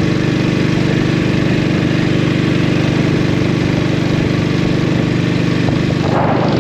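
Norton 16H's 500cc side-valve single-cylinder engine running steadily under way, with wind noise.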